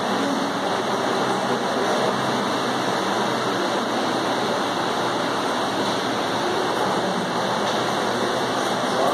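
A congregation praying aloud all at once, many voices blending into a steady, even wash of sound with no single voice standing out.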